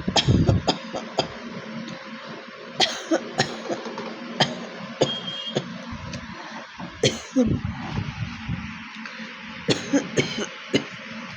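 A person coughing from a bad cold: a quick run of short coughs at the start, single coughs and throat clearings scattered through the middle, and another short run near the end.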